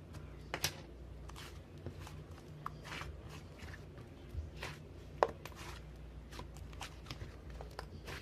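Slime being squished and stretched by hand, giving irregular sharp clicks and pops, over a low steady hum.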